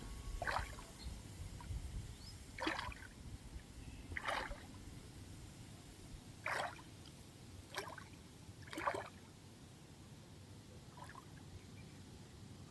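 Water splashing and sloshing in short bursts, about six times, a second or two apart, over a faint low rumble.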